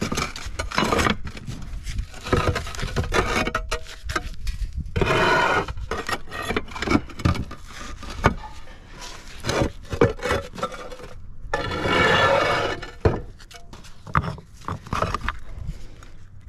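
Concrete flat roof tiles being worked loose with a flat bar and lifted out: hard knocks and clinks of tile against tile, with scrapes of tile sliding over tile. There are two longer scraping stretches, about five seconds in and again around twelve seconds.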